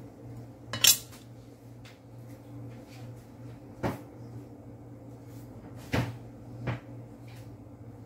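Four scattered knocks and clatters of kitchen things being handled and set down, the loudest about a second in, over a steady low hum.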